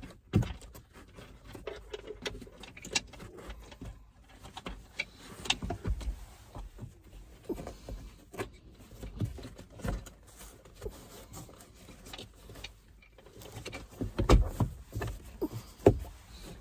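Scattered clicks, taps and light knocks from hands handling a replacement sun visor and its mount inside a car, with a few louder knocks near the end.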